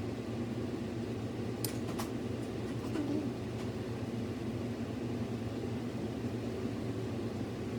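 Steady low mechanical hum, with two sharp clicks about two seconds in.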